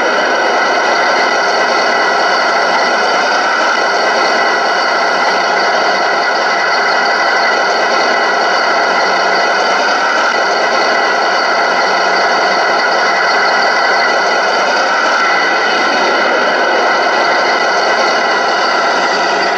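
Radio-controlled model fire truck making a steady engine-like drone with a whine in it, unchanging in pitch and level, thin with no deep bass.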